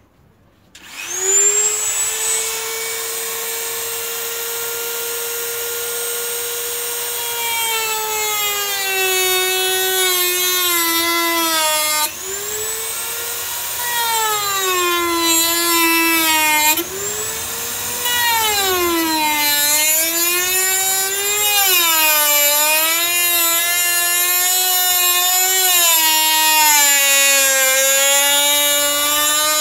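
Dremel rotary tool spinning up about a second in with a high whine, then cutting a PVC sheath blank with a small cutting disc. Its pitch sags and wavers as the disc bogs in the plastic, with two brief breaks where it jumps back up to free speed.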